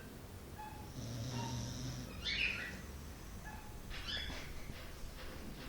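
Dog snoring in her sleep, much like a person: a low snore, then short airy snorts that come again every two seconds or so.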